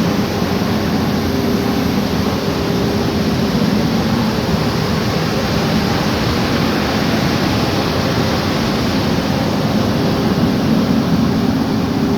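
Volvo EC300E excavator's diesel engine running at a steady speed, with a steady hum and an even rush of noise. The machine has just had its exhaust aftertreatment fault repaired, which had limited its power.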